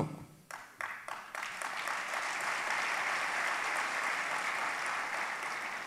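Audience applauding: a few scattered claps about half a second in swell into steady, dense applause that eases slightly near the end.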